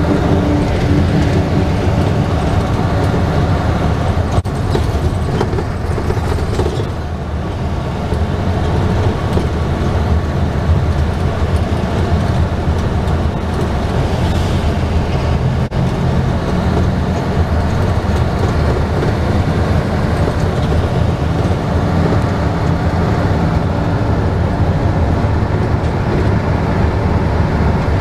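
Steady engine drone and road rumble of a medium-size bus, heard from inside the cabin while it drives along.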